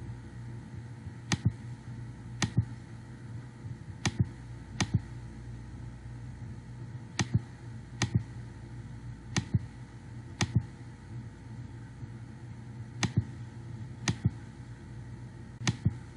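Computer mouse clicking: about eleven sharp single clicks, mostly in pairs about a second apart, over a steady low hum.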